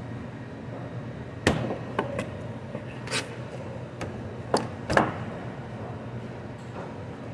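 Butcher's knife knocking and tapping on a plastic cutting board while trimming beef, about six sharp knocks, the loudest about a second and a half in and about five seconds in, over a steady low hum.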